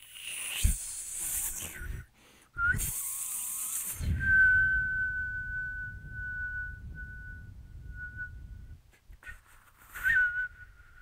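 Two bursts of breathy, rushing air noise, then a high, thin whistle tone held steady for about four and a half seconds, and a short breathy whistle again near the end, from a solo performance of an experimental score.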